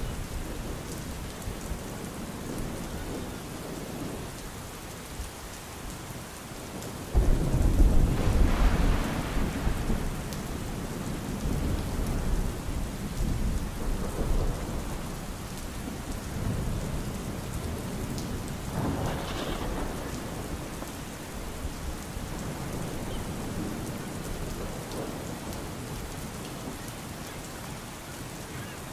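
Steady rain falling, with a loud rumble of thunder that breaks in suddenly about a quarter of the way in and dies away over a few seconds. A fainter rumble comes about two-thirds of the way in.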